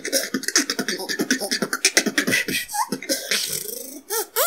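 Beatboxing: a rapid stream of mouth-made drum clicks and snare-like hits over bending vocal bass sweeps, with a hissing stretch about three seconds in and a rising vocal sweep near the end.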